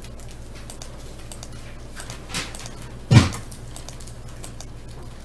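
A steady low hum, with a soft click about two and a half seconds in and a single sharp thump just after three seconds.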